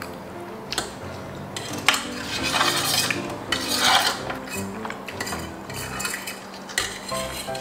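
Metal forks and spoons clinking and scraping on a stainless steel serving tray as food is picked up, with a few sharp clinks and longer stretches of scraping.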